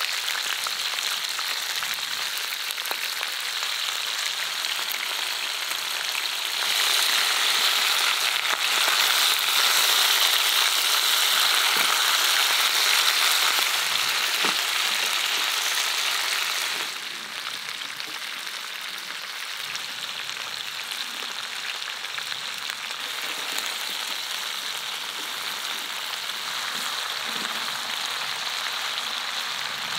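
Wild boar meat and vegetables sizzling in an enamel pot, a steady frying hiss that grows louder for about ten seconds in the middle, then settles back to a softer sizzle.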